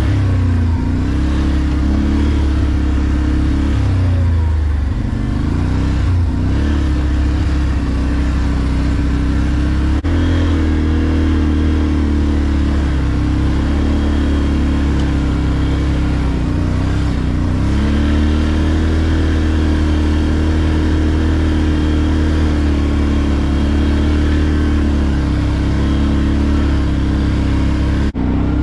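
Quad bike (ATV) engine running under throttle on a rough dirt trail. Its pitch sags and picks up again twice as the rider eases off and opens the throttle.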